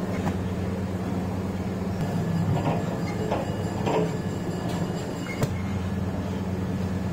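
Electric dough mixer running with a steady hum as its hook kneads a large batch of dough in a steel bowl, with a few soft knocks around the middle.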